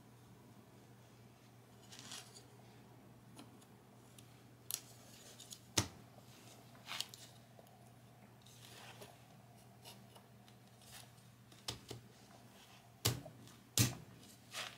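Small wooden parts of a carved hardwood calligraphy brush stand clicking and knocking together as it is fitted together by hand: a string of separate sharp clicks, the loudest two near the end, over a low steady hum.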